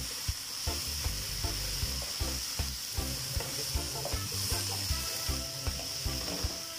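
Mung bean sprouts and carrot strips sizzling in a hot aluminium wok as they are stir-fried, tossed and scraped with a spatula.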